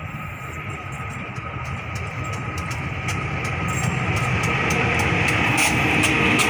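A diesel locomotive hauling a passenger train approaches and passes close by, its engine rumble growing steadily louder. Sharp clicks of the wheels on the rails come more and more often as it nears.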